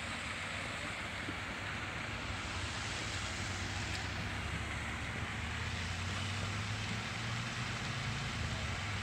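Steady wind noise on the microphone over a low, wavering hum that grows slightly stronger about halfway through.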